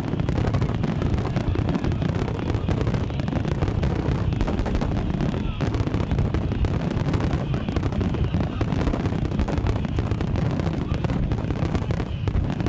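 A dense barrage of fireworks: many aerial shells bursting close together in a continuous rumble of booms with rapid crackling throughout.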